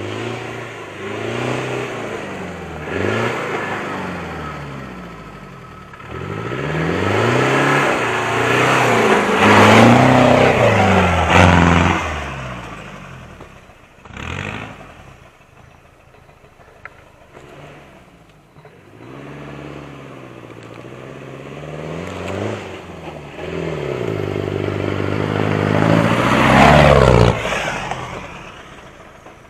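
Land Rover Discovery 200Tdi's four-cylinder turbodiesel engine revving up and down under load as the 4x4 works a rough dirt trail. It is loudest about a third of the way in, drops back in the middle, and builds again to a peak near the end.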